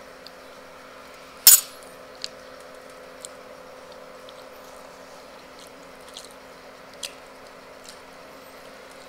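A metal spoon clinks sharply once against a ceramic plate about a second and a half in, followed by a few faint clicks, over a steady low hum.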